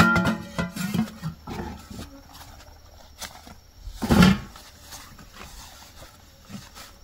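An animal calling in the first second, then small knocks and a loud short thump about four seconds in as a woven basket is set down on a bamboo table.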